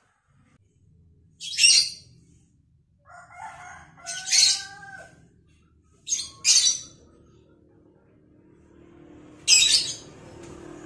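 Caged lovebird giving short, shrill screeching calls, about five in all, spaced a few seconds apart with a quick pair in the middle.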